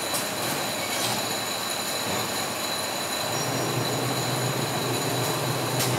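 Steady running noise of food-factory machinery, with a constant high-pitched whine. A lower hum joins about three seconds in, and there are a couple of light clicks.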